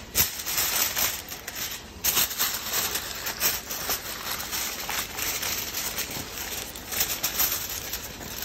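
Aluminium foil crinkling and rustling in irregular bursts as it is pressed and crimped down over a metal baking pan.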